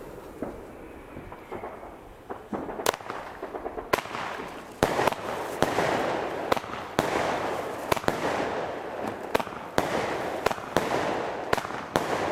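Argento Nobile 10-shot, 20 mm consumer firework cake firing. After a few quiet seconds, sharp bangs come in quick succession about three seconds in, roughly one every half second to second, each followed by a short hiss as the shells lift and burst into peonies.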